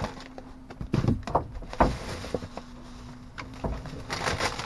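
Hands rummaging through dumpster trash: crinkling plastic bags and packaging and shifting cardboard in short, irregular rustles and knocks, over a faint steady low hum.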